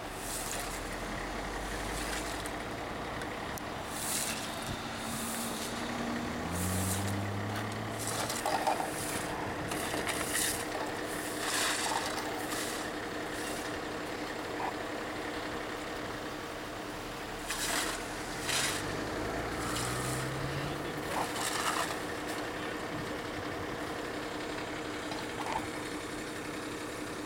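Fire truck engine idling with a steady hum, a deeper rumble swelling at the start and again about two-thirds through. Short scraping and hissing noises come and go over it.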